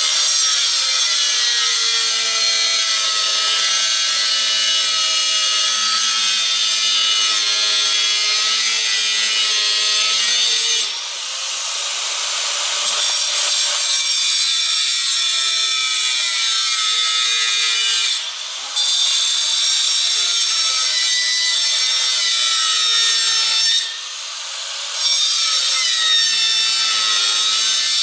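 Handheld angle grinder with a cut-off wheel cutting through a metal camera mast, a loud continuous grinding whose pitch drifts as the wheel bites. It lets up briefly three times: near the middle, about two-thirds in, and near the end.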